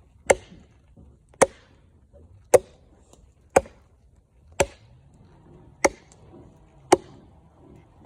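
Wood being chopped by hand: seven sharp, evenly paced chops about a second apart, the blade cutting chips out of a log.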